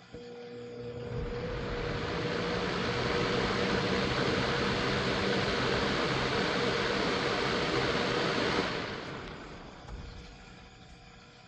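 Lasko Weather-Shield 20-inch box fan switching on with a click and a motor hum, its air rush building to full over about two seconds and running steadily. Near the end the motor cuts out and the rush dies away over a second or two, with a second click.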